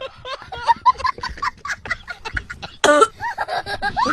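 A run of short, chicken-like clucking sounds: the odd animal-like cough at the centre of the joke, with one louder cluck about three seconds in.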